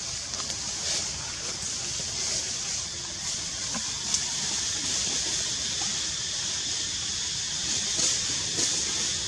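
Steady high-pitched hiss of outdoor ambience that swells slightly every second or so, over a low rumble.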